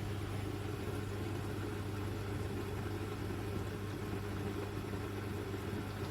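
Mini countertop dishwasher running: a steady low motor hum that does not change.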